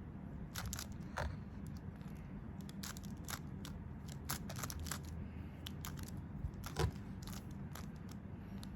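Plastic Rubik's cube being turned one-handed: quick, irregular clicks and clacks as its layers are twisted, a few a second, with one sharper clack about seven seconds in.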